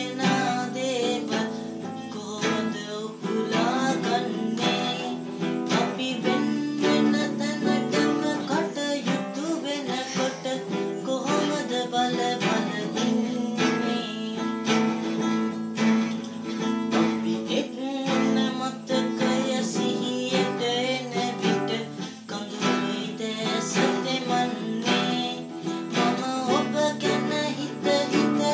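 A man singing a Sinhala song while strumming chords on an acoustic guitar.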